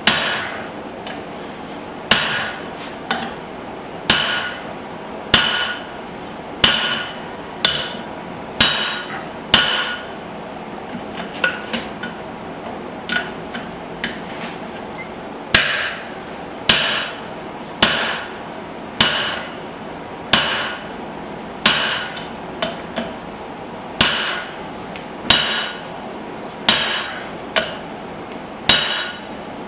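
Hand hammer striking a punch driven into a hot spring-steel hatchet head to punch the eye hole: heavy, ringing metal-on-metal blows about one a second, with a few lighter taps in between.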